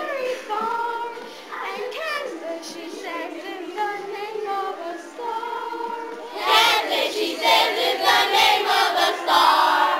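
Group of children singing together in chorus, louder and fuller from about six and a half seconds in.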